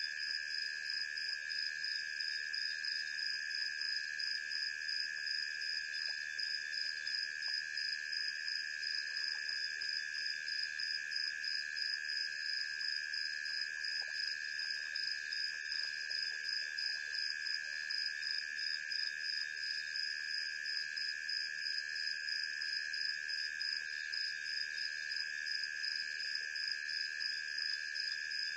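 Night insect chorus: several crickets trilling steadily at different pitches, the highest trill pulsing in a fast, even beat.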